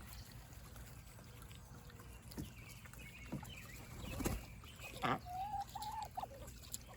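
Domestic geese and ducks giving a few soft, scattered calls, the longest a drawn-out call about five seconds in.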